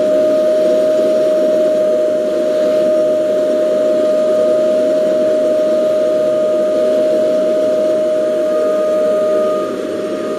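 Vacuum cleaner running with a steady whine over a rush of air, its hose nozzle held on a laptop's cooling fan to suck the dust out. The sound drops a little near the end.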